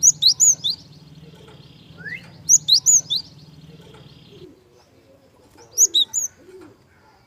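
Gelatik bird calling in three bursts, each of three or four quick, high, sharp chirps, a couple of seconds apart. A faint steady hum lies under the first two bursts and stops about four and a half seconds in.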